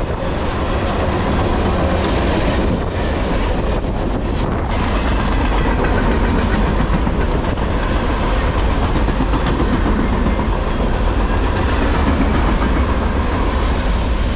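A long freight train rolling past on the near track, tank cars and then open-top container cars going by with the steady noise of steel wheels on the rails.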